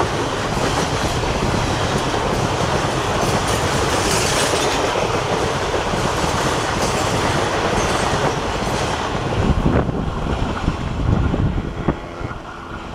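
Passenger train coaches rolling past at speed: a steady, loud rush of wheel and rail noise. A few heavier low rumbles come as the last coaches go by, and the noise falls away near the end once the train has passed.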